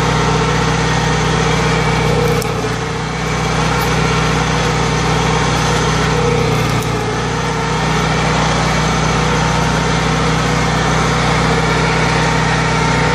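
Engine running steadily at an even pitch, driving the hydraulics for the pole loppers. Its sound dips briefly about two and a half seconds in and again near seven seconds.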